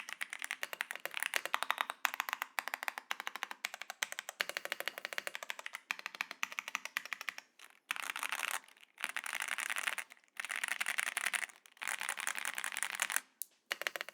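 Attack Shark X87 Ultra mechanical keyboard being typed on: fast, even keystrokes at first, then from about halfway on, bursts of very rapid keystrokes about a second long, separated by short pauses.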